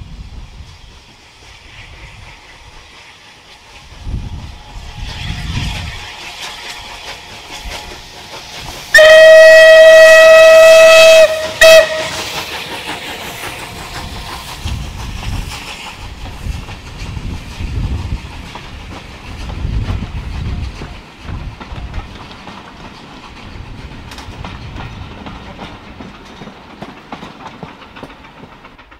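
Steam locomotive passing with a train of coaches, its exhaust beats and wheels on the rail joints running under the steam. About nine seconds in comes one long steam-whistle blast on a single steady note, then a short second toot; the whistle is by far the loudest sound.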